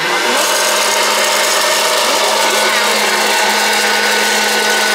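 Hot-air popcorn popper running with a steady blowing drone and a constant low hum from its fan motor, heating the kernels before any popping.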